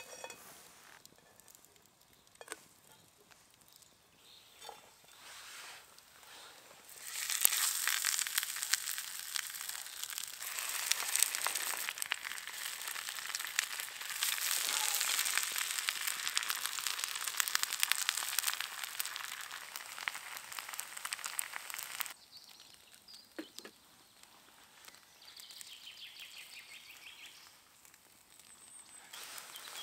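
Food sizzling and crackling in a hot pan: a dense hiss full of fine crackles that starts abruptly about seven seconds in and cuts off about fifteen seconds later. A few small clicks and knocks before and after it.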